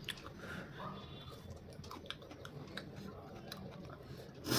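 A person chewing a raw chilli: scattered small crunching clicks and wet mouth noises, with a short, louder breathy sound near the end.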